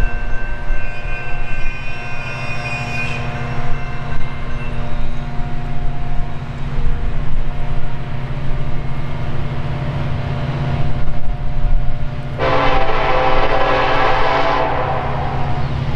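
Horn of an approaching Norfolk Southern EMD SD70ACE diesel locomotive: a long chord that fades out a few seconds in, then a louder blast of about two seconds near the end, over the train's steady low rumble.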